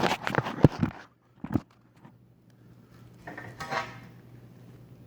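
A long straight edge and a level being knocked and clattered as they are moved and set down on the screeded floor: several sharp knocks in the first second and one more about a second and a half in, then softer scraping a little after three seconds.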